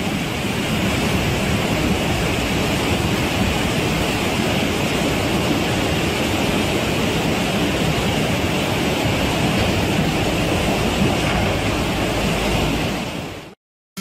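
Floodwater torrent rushing down a street, a loud steady rush of water. It fades and cuts off suddenly just before the end.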